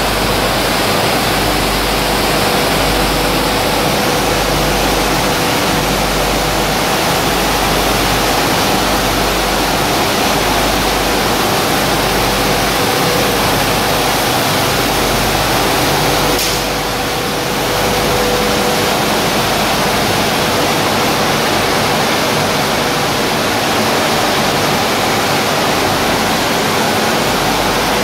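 Steady loud roar of a running roller flour mill's machinery, with a faint steady hum under it; the roar drops slightly for about a second near the middle.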